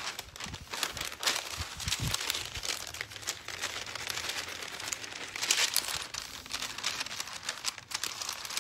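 Parchment paper crinkling and rustling in irregular bursts as it is lifted, tilted and shaken to spread loose glitter across it.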